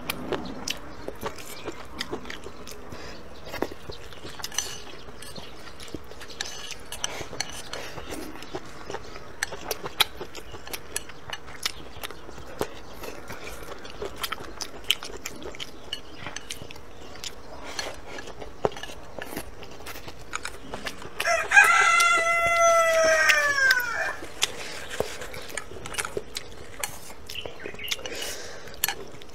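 A rooster crows once, about twenty seconds in: one long call of about two and a half seconds that sags in pitch at the end. Around it, small clicks and taps of someone eating go on throughout.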